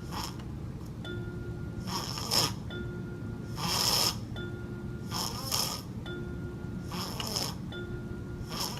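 A sleeping baby snoring, one noisy snore with each breath about every one and a half seconds. Short held music notes sound between the breaths.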